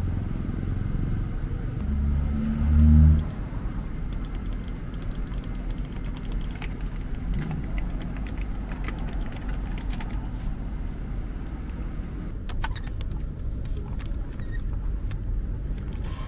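Light plastic clicks, scattered over several seconds, as the push-buttons on an old cup-drink vending machine are pressed, over a steady low rumble; a louder low hum swells and stops about two to three seconds in.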